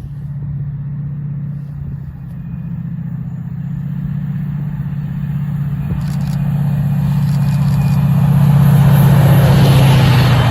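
Class 68 diesel-electric locomotive's Caterpillar V16 engine running under power, a steady low drone that grows louder through the second half as the locomotive approaches, loudest near the end.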